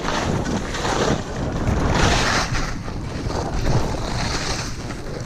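Wind buffeting the microphone: a rough, rumbling hiss that starts suddenly and is loudest about two seconds in.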